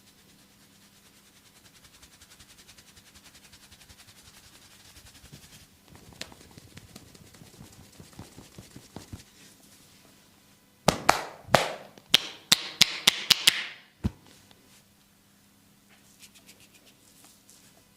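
Hands working oiled skin in a body massage: soft rubbing and a few light ticks, then a fast run of about ten loud, sharp smacks over some three seconds.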